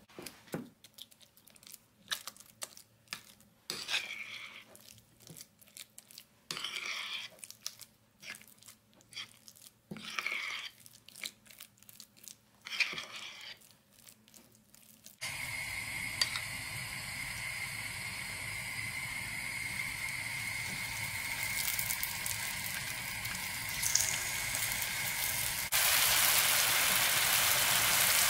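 A metal spoon stirring thick oat-flake and banana batter in a bowl: wet scraping and clicks against the bowl. About halfway through this gives way to oil sizzling steadily in a frying pan, louder near the end as spoonfuls of batter fry.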